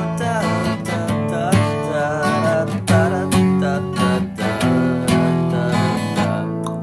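Acoustic guitar music, strummed chords with held notes ringing under them.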